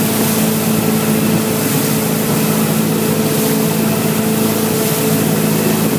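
Motorboat engine running steadily at cruising speed, a constant drone, with the rush of the churning wake and wind over the microphone.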